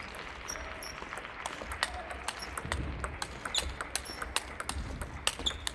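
Table tennis rally: the ball clicking sharply off the rackets and the table in quick succession, a couple of times a second, with short squeaks of the players' shoes on the hall floor.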